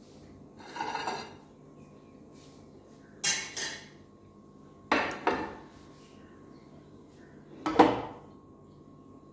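A frying pan being shifted on a gas stove's burner grate, with a plate handled beside it: four separate clattering knocks. The first, about a second in, is soft, the next two are quick double clinks, and the loudest comes near the end.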